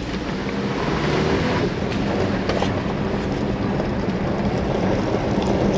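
A 2023 Chevy Colorado ZR2's 2.7-litre turbo four-cylinder running steadily at raised revs in Baja mode, heard from inside the cab, over the rumble of tyres on a gravel dirt road. A few sharp clicks come through the rumble.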